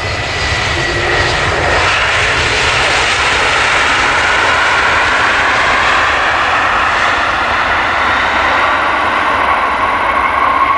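Airbus A320neo's twin jet engines passing close, a loud steady rush with a thin whine that slowly falls in pitch.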